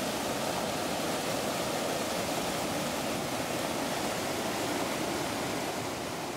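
Muddy floodwater rushing steadily down a forest erosion ditch in spate, a flash-flood torrent, fading out near the end.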